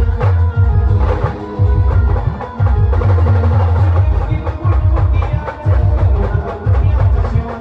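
Indian brass band playing: horns holding a melody over a fast, heavy drum beat.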